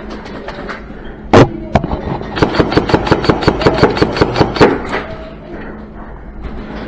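Airsoft gun firing: two sharp cracks about a third of a second apart, then a rapid even string of shots at about eight a second for a little over two seconds.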